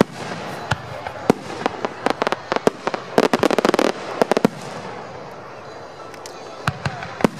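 Aerial fireworks shells bursting overhead: scattered sharp bangs, with a rapid run of pops lasting about a second around three seconds in.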